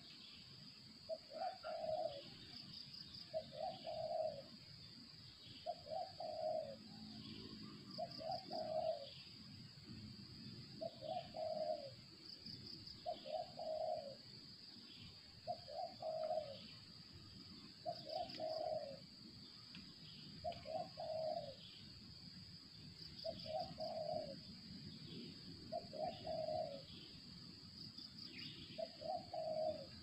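Spotted dove (tekukur) cooing, one short phrase about every two seconds, repeated over and over, with faint high chirps and a steady high-pitched hum behind it.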